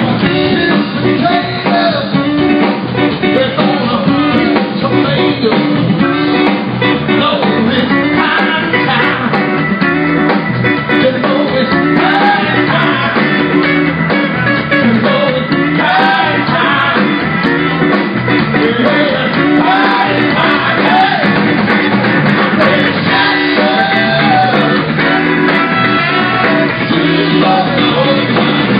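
Live rock band playing loud and steady, with electric guitars, keyboard, drums and a male lead vocal, heard through a phone's microphone from the audience.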